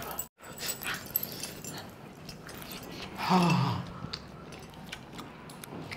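Wet chewing and lip-smacking of a man eating mutton curry and rice by hand, with a short hum that falls in pitch a little past three seconds.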